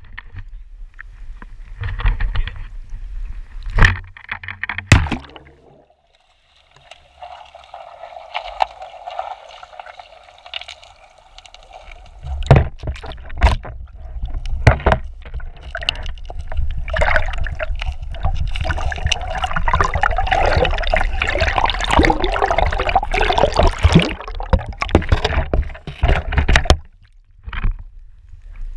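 River water rushing and gurgling as heard by an action camera held under the surface, muffled and dense, with knocks and bumps of the camera housing. It starts with splashing and handling knocks, grows loud from about twelve seconds in, and cuts off suddenly near the end as the camera comes out of the water.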